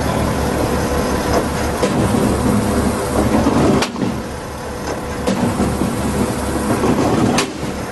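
Skid steer engine running under load while a hydraulic post driver hammers a post, with about four sharp blows spaced roughly a second and a half to two seconds apart.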